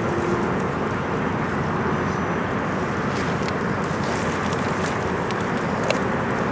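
Steady rush of a fast-flowing river at the bank, with wind buffeting the microphone. A few faint clicks sound over it.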